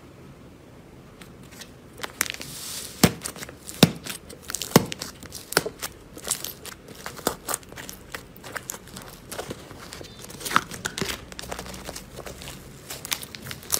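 White slime flecked with silver foil flakes being poked, pressed and stretched by hand, giving irregular sharp crackles and crinkles. It is nearly quiet for the first two seconds before the crackling starts.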